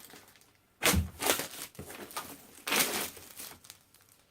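Packaging crinkling and rustling as it is handled and pulled apart, in two louder bursts, about a second in and again near three seconds in.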